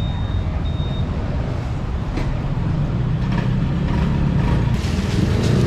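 Street food stall ambience: a steady low rumble with sharp clicks, a couple at first, then a quick run of them near the end.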